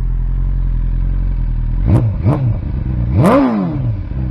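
2021 BMW S1000RR inline-four, Brentune-flashed, idling through a titanium Akrapovic full system with the stock BMW muffler. Two quick throttle blips come about two seconds in, then a longer, higher rev about a second later, and each falls straight back to a steady idle.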